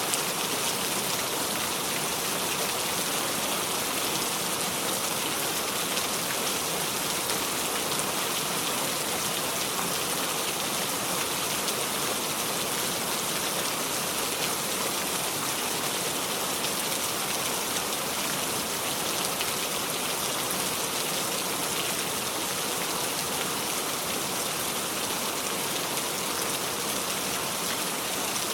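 Steady heavy rain falling and pattering on surfaces, a constant hiss with fine scattered drop ticks and no thunder.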